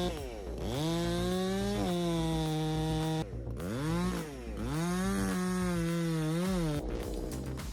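Chainsaw engine running at high revs, the pitch dropping away and climbing back up several times as the throttle is let off and opened again.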